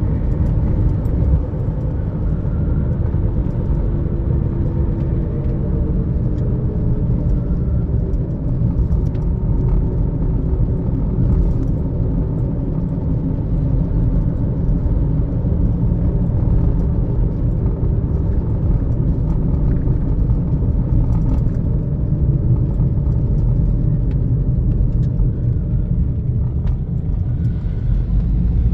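Steady road and engine rumble heard inside the cabin of a car cruising on a paved highway.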